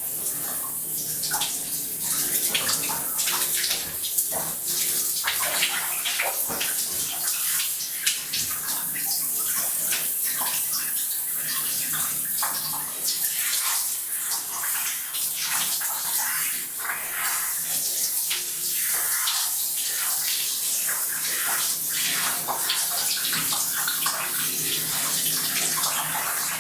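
Shower water running into a bathtub: a steady hiss full of irregular splashes.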